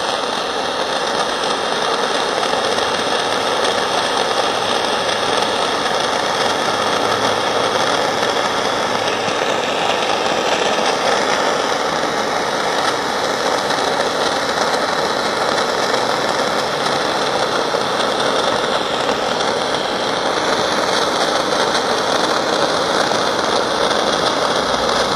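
Gas soldering torch burning with a steady hiss while copper roofing seams are sweat-soldered. It cuts off suddenly at the end.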